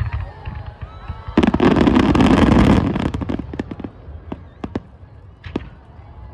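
Aerial fireworks shells bursting. About a second and a half in comes a loud, dense rush of bangs and crackling that lasts under two seconds, followed by a few separate sharp cracks.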